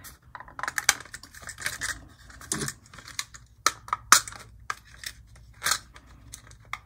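Plastic body shell of an HO-scale model locomotive being worked off its chassis by hand: irregular clicks and short scrapes of plastic flexing and sliding as the clips let go.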